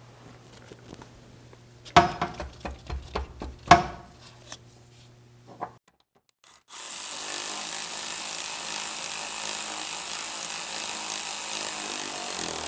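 Hand tools knocking and clanking against the truck's front-end steel a few times, then a power tool running steadily with a high hiss for about six seconds.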